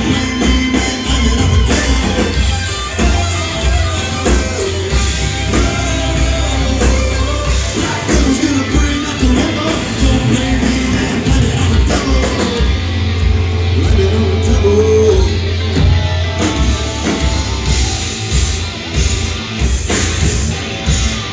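Live rock band playing loud, with electric guitar, bass and drums, and no lyrics sung.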